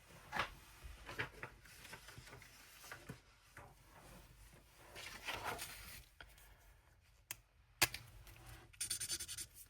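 Quiet handling of alcohol markers and paper: scattered small clicks and rustles as markers are uncapped and tried out, with a sharp click about eight seconds in and a short scratchy rattle near the end.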